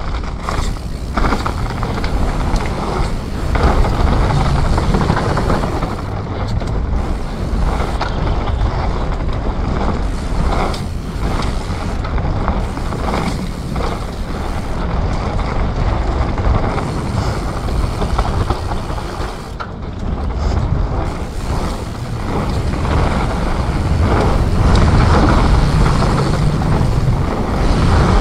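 Commencal Supreme DH29 downhill mountain bike ridden fast down a dirt flow trail: tyres rolling and the bike rattling and knocking over bumps, with a continuous low rumble. The loudness rises and falls with the terrain all the way through.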